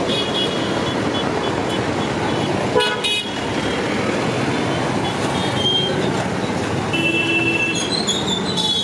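Busy road traffic running steadily, with vehicle horns tooting in several short blasts; the loudest blast comes about three seconds in, and more horns sound near the end.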